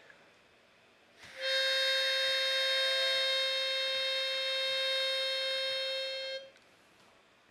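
Harmonica blown on a single note around the 4 hole (middle C), held steady for about five seconds from about a second in: a long, smooth exhale through the harmonica as a breathing exercise. A fainter second, higher note sounds briefly alongside it.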